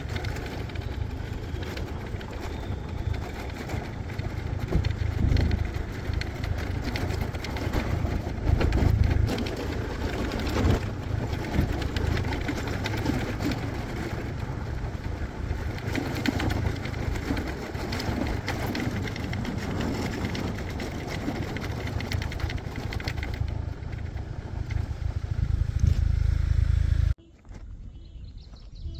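Small motorbike riding along a road: a steady engine rumble mixed with wind rushing over the microphone, with a few louder gusts. It cuts off suddenly near the end to a much quieter outdoor sound.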